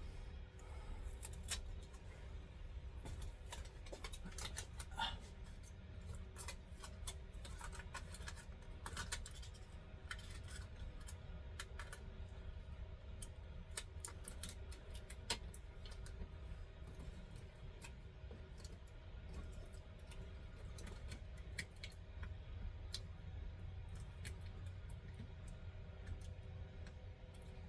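Tape being cut and pressed into place by hand while sealing gaps in RV air-conditioner ducting: scattered small clicks and scratchy rustles, busiest in the first half, over a steady low hum.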